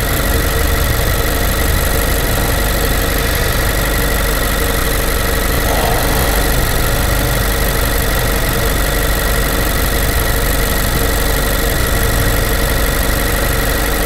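A 2018 Honda Accord's 1.5-litre turbocharged four-cylinder engine idling steadily.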